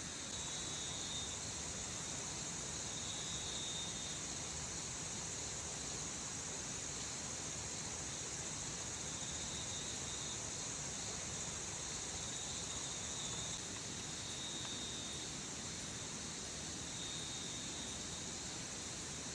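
Steady forest ambience: an even, high hiss, with an insect trilling on and off at a high pitch. The hiss eases slightly about two-thirds of the way through.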